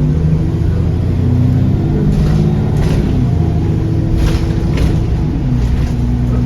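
Alexander Dennis Enviro400 Trident double-decker bus engine running under way with a steady low drone, its note dropping about five and a half seconds in. Several sharp rattles or knocks sound between about two and five seconds in.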